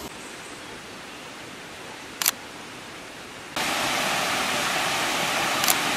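Water rushing down a small rocky cascade, a steady hiss that jumps much louder about three and a half seconds in. A sharp click sounds twice, once before the jump and once near the end.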